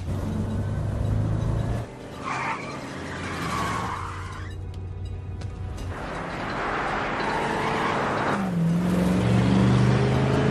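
Car engines running hard during a chase, with tyres skidding twice and an engine revving up near the end.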